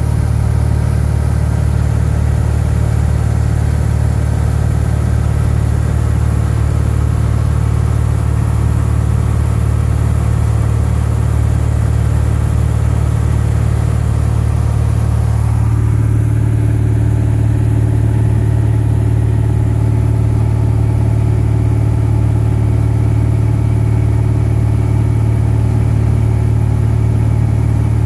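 A light aircraft's piston engine and propeller droning steadily, heard from inside the cabin. About halfway through the engine note changes slightly.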